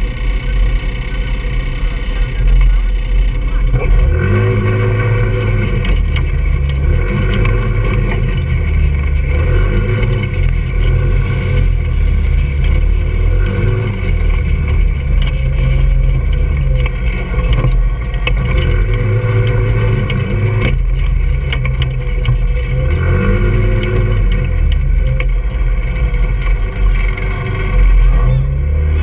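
Trailmaster 150cc go-kart engine running steadily for the first few seconds, then revving up and easing off again and again as the kart is driven over rough dirt.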